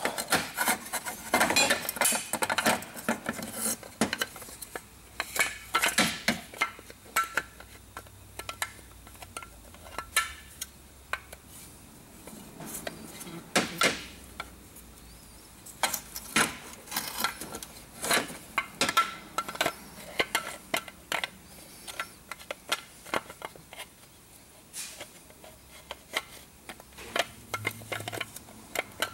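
Irregular metallic clicks and clinks from a VW Mk4 gear shifter assembly being worked apart by hand. The lever, its springs and the cast housing knock together as a screwdriver pries at them.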